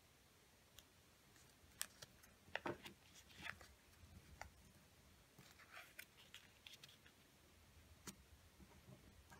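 A square of paper being folded by hand against a tabletop: faint rustling with scattered sharp crackles and taps as the fold is pressed and creased.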